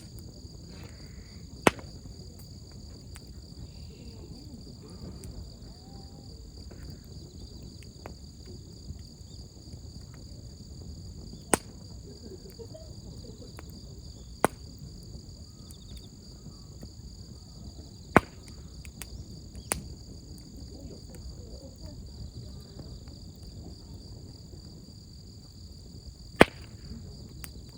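Wood campfire burning with a low steady rumble and sharp pops from the burning wood, about six in all, spaced irregularly. Insects chirr steadily throughout.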